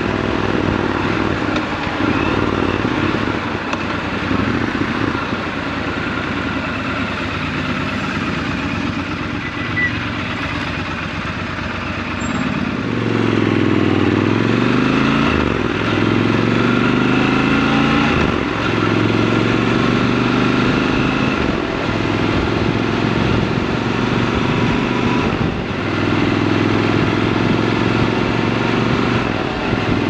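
Triumph Scrambler 1200 XC's 1200 cc parallel-twin engine heard from the rider's seat, running low and even for about twelve seconds. It then gets louder with climbing revs, dipping briefly several times as it shifts up, before settling into a steady cruise.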